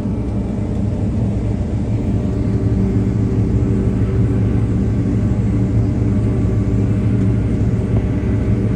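Diesel engine of harvest machinery running steadily under load, a constant low hum with a steady pitch that does not change.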